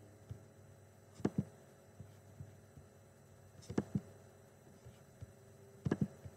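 Computer mouse clicks: three quick clusters of sharp clicks, about a second in, near the middle and near the end, over a faint steady hum.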